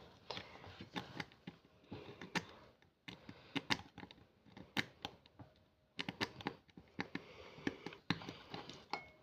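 Irregular small scratching clicks and ticks of a tool picking at a thin, brittle dalgona sugar candy to cut its shape out, with brief pauses between bursts.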